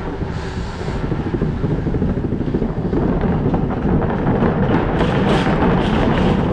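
Bicycle tyres rolling over the plank decking of a footbridge, a loud steady rumbling clatter that grows louder during the crossing. The noise is loud enough to warn people on the bridge that a bike is coming.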